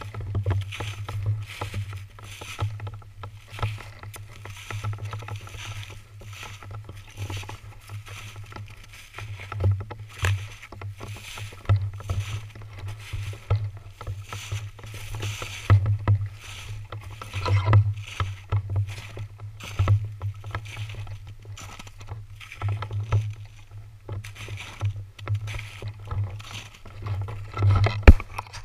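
Footsteps crunching through snow and dry grass at a steady walking pace, with a louder bump near the end.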